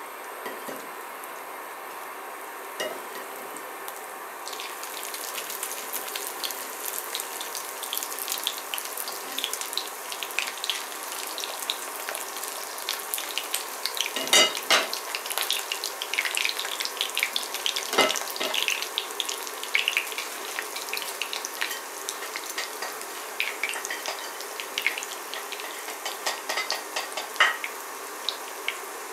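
Breaded chicken nuggets frying in shallow vegetable oil in a ceramic pan, the oil crackling and sizzling. It is quiet at first and becomes a dense crackle about four seconds in, as more pieces go into the oil. There are a couple of sharper knocks near the middle.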